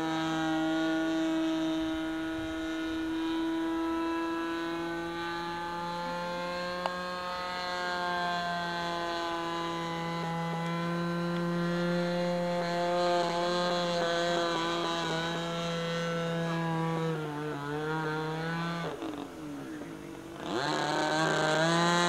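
The engine of a radio-controlled Fairchild PT-19 model plane in flight, buzzing steadily overhead. Its pitch wavers, and a couple of seconds before the end it drops in pitch and loudness, then picks back up.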